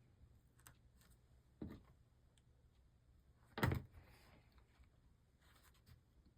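Two light knocks about two seconds apart, the second louder, with a few faint clicks between: tools or glass being handled on a work table.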